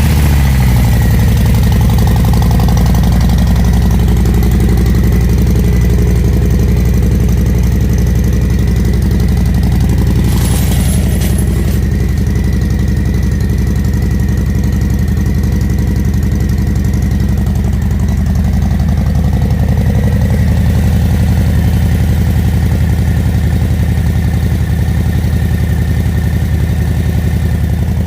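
Harley-Davidson Low Rider ST's Milwaukee-Eight 117 V-twin idling steadily just after being started, its pitch settling down in the first second.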